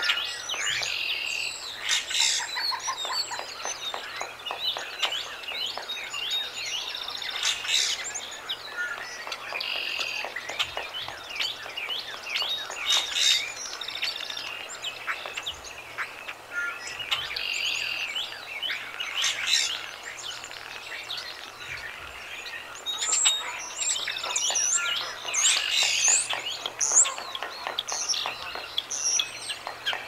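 Small birds chirping and calling, several voices overlapping, in bursts every few seconds. Under them, quick light taps of a pileated woodpecker pecking at bark.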